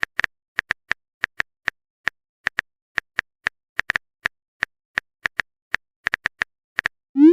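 Typing sound effect: short, sharp keyboard clicks at an uneven pace, about three or four a second.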